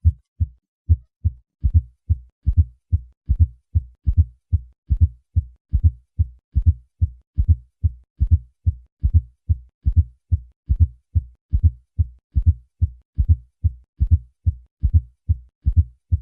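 Auscultated heart sounds with a fourth heart sound: a steady, low-pitched triple rhythm of thuds, the late-diastolic S4 falling just before each S1, then S2. A fourth heart sound points to a stiff, hypertrophied left ventricle, most commonly from hypertension.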